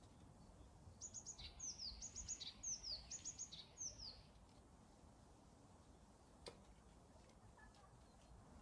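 A small songbird sings one phrase of quick, high, downward-sliding notes, starting about a second in and lasting about three seconds. A single click follows a couple of seconds later.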